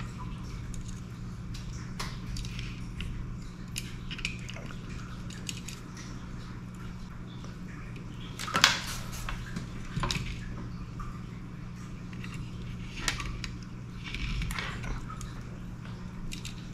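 Scattered small clicks, taps and rustles of wires, tools and a perfboard being handled during soldering, the sharpest click about halfway through, over a steady low hum.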